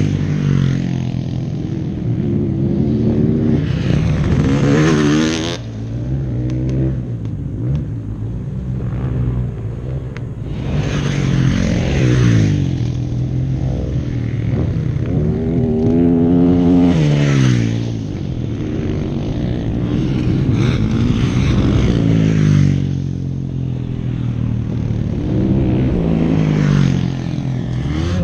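Motocross dirt bikes riding past one after another, their engines revving up through the gears and then dropping in pitch as each goes by, several passes in turn with short lulls between.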